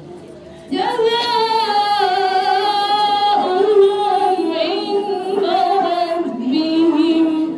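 A woman's voice chanting a Quran passage in a slow melodic style into a hand-held microphone, with long held notes that waver in pitch. The phrase begins about a second in and ends just before the close.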